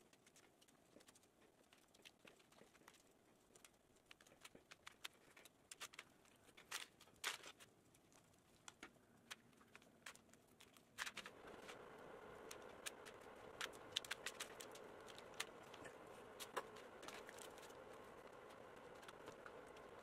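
Faint scattered clicks and scrapes of a knife and hands working the hide and flesh of a deer's head on cardboard. About eleven seconds in, a steady faint background noise sets in beneath them.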